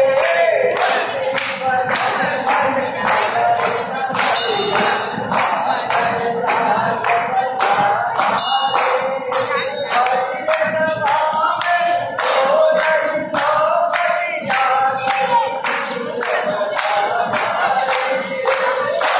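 A group of voices singing a Hindu devotional bhajan in unison, with steady rhythmic hand-clapping, a little over two claps a second.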